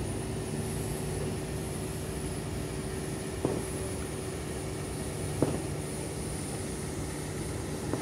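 Large diesel engine running at a steady hum, with two short knocks about three and a half and five and a half seconds in.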